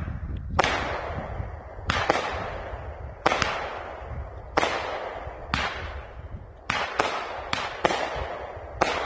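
A 7-shot 200-gram consumer firework cake (World Class Fireworks' Bomb Chicka Bomb Bomb) firing: a string of sharp bangs about a second apart, some in quick pairs near the end, each trailing off in a fading hiss as the shots break into brocade stars.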